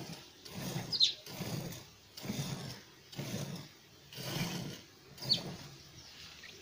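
Cow being milked by hand into a metal pail: jets of milk swish into the pail in a steady rhythm, about one burst a second. Two short, high, falling chirps cut in, about a second in and again a little past five seconds.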